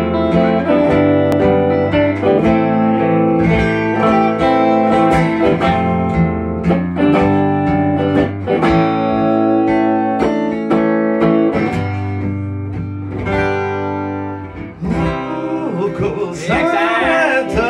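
Guitar-led band music playing a song, with sustained chords and a steady low bass line; near the end a wavering voice-like line comes in over the music.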